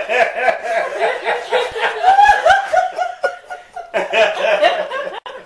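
Several people laughing at a joke's punchline: a continuous run of overlapping chuckles and laughs that breaks off suddenly near the end.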